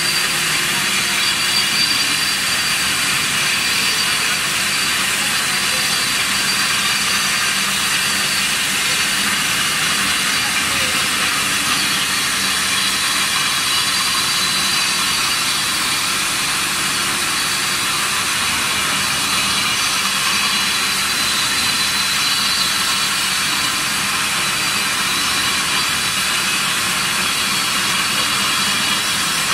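Single-phase concrete floor grinder running steadily as it grinds a concrete floor, with a vacuum hose drawing off the dust: an even, hiss-like whir with a faint low hum underneath.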